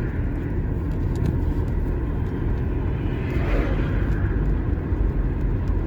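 Steady low rumble of a moving car's engine and tyre road noise, heard from inside the cabin, with a brief swell a little past halfway.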